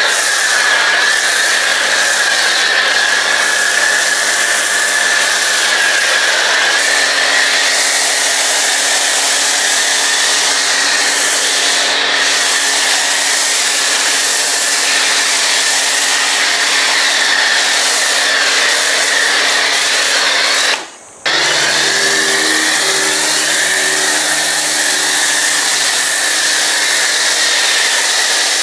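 Karcher K3 Silent pressure washer running and spraying water, a steady hiss of spray with a high whine. It cuts out for a moment about three-quarters of the way through, then picks up again.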